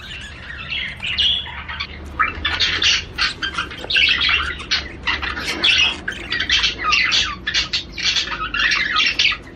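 A room full of caged pet birds calling together: many overlapping short squawks and chirps, continuous and busy.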